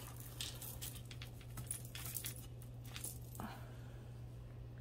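Faint clinks and rattles of glass-bead and metal-chain costume jewelry being handled, a scatter of small clicks over a steady low hum.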